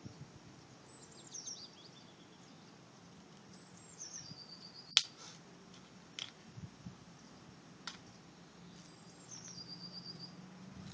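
A small songbird sings the same short phrase three times: a few high descending notes ending in a quick run of notes. A sharp click about five seconds in is the loudest sound, with two fainter clicks after it.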